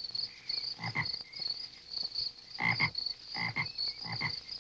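A frog croaking in several short, rasping calls, each about a second apart after the first second, over steady, fast-pulsing cricket chirping.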